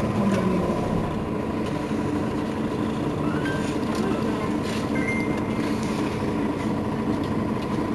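Mercedes-Benz Citaro facelift city bus standing still with its engine idling, a steady hum.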